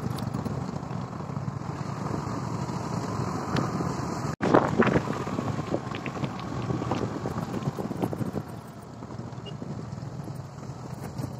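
Motorcycle riding at a steady pace, its engine running under wind buffeting on the microphone. About four seconds in, the sound cuts sharply. After it come loud knocks and rattles as the bike runs over a rough dirt track.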